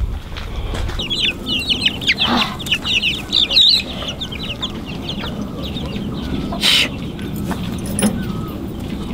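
Chickens clucking: a quick run of short, high calls for a few seconds, fading out, with a brief rasping noise a little later.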